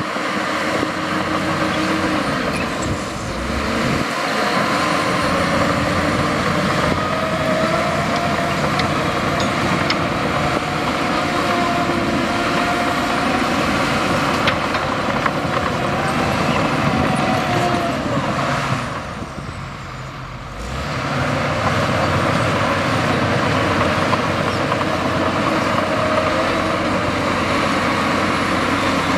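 Heavy diesel earthmoving machinery running under load, its engine pitch wavering up and down. The engine noise drops off briefly about two-thirds of the way through, then comes back up.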